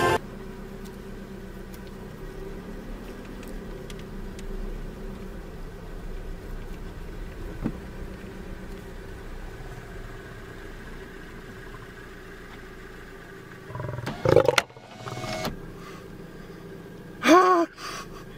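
Low steady rumble of an idling car, broken by two short, loud calls that rise and fall in pitch, one about fourteen seconds in and one near the end.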